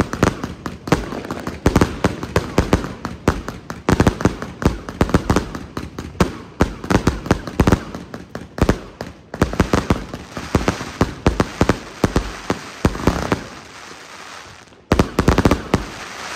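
Two consumer firework cakes, a Jorge JW4011 and a Tropic TB251 salute fan, firing overhead: a dense run of sharp bangs, several a second. About three quarters through it thins to a hissing crackle, then a last flurry of bangs comes near the end.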